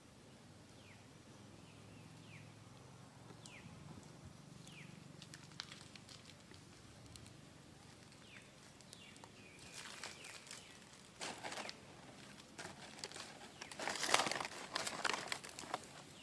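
Short high chirps, each falling in pitch, repeated about once a second, then crackling rustling that grows louder toward the end.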